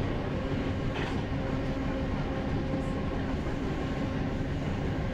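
Passenger train running, heard from inside the carriage: a steady low rumble of the ride with a faint constant hum over it.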